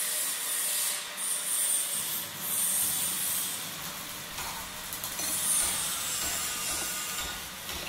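A hissing, crackling sound effect, strongest in the high range, that swells and eases a few times.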